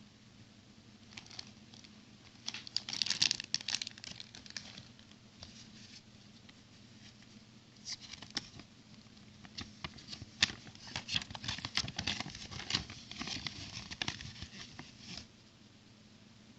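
Small plastic toy bricks and their plastic packaging being handled by hand: crinkling and rustling mixed with sharp little clicks. The sounds come in two busy spells, one in the first few seconds and a longer one from about halfway until shortly before the end.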